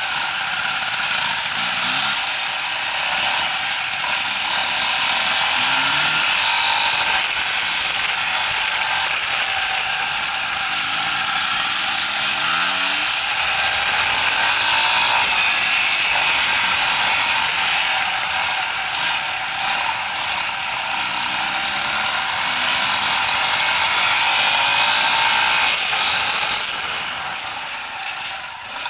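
Off-road motorcycle engine revving up and down over and over, with a rising-then-falling pitch every second or two, as a rider works the throttle on a difficult climb.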